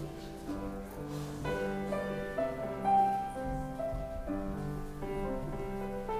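Slow instrumental music on a keyboard instrument, held notes moving from chord to chord under a simple melody.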